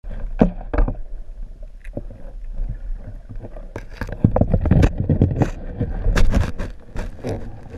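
Muffled sound of an underwater camera: a steady low rumble of water with irregular clicks and knocks, thickest from about four to six and a half seconds in.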